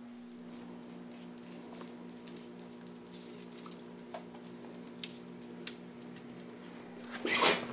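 Handling noise from a handheld camera: scattered light clicks and a louder rustle about seven seconds in, over a steady low electrical hum.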